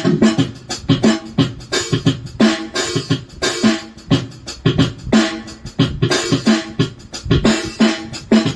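Drum sounds from a Roland SPD-20 Pro electronic percussion pad played in a fast, steady rhythm: quick strikes mixed with short pitched low drum notes.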